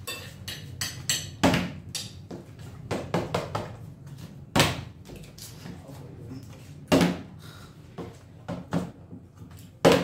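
Plastic water bottle flipped and landing on a wooden tabletop: four sharp knocks a couple of seconds apart, with lighter taps between.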